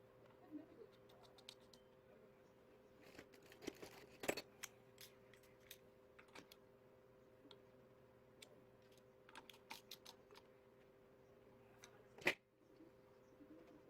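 Scattered small clicks and taps, with two louder clicks about four seconds in and near the end, over a faint steady hum.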